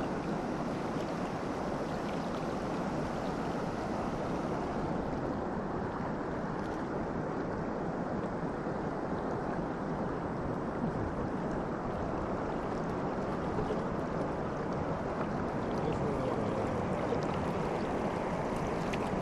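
River water rushing steadily, an even flow with no break.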